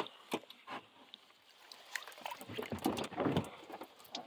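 A brown trout being netted and lifted into a boat: a few sharp knocks against the boat in the first second, then water splashing and the fish thrashing in the net.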